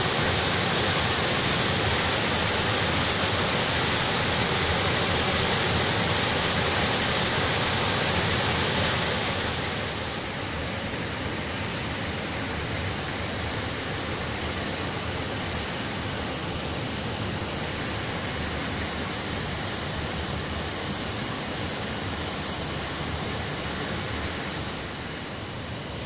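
Waterfall cascading over rocks into a pool: a steady rush of falling water, a little quieter from about ten seconds in.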